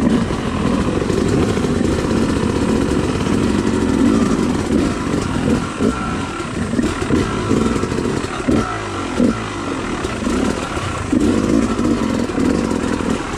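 Off-road dirt bike engine pulling at low speed over rocks, its note rising and falling as the throttle is worked on and off.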